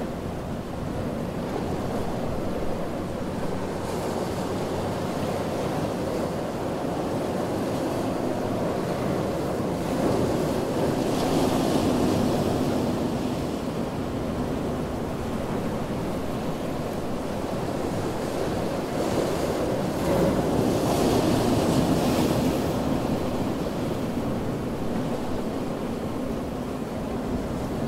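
Ocean surf: a steady rush of waves on a beach that swells twice, about ten seconds in and again near twenty seconds, as waves break and wash up with a hissing spill of water.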